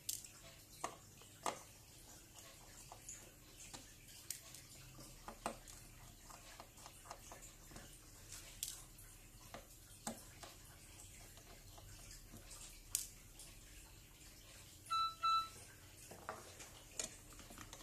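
Faint, scattered clicks and ticks of a small screwdriver on the screws and frame of a Samsung Galaxy A8 (2018) as it is unscrewed. About fifteen seconds in, two short electronic beeps, the loudest sound.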